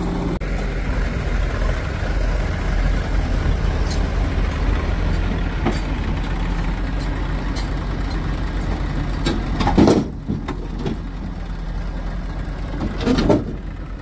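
JCB 3DX backhoe loader's diesel engine running steadily under work, with two short, louder bursts of noise about ten and thirteen seconds in.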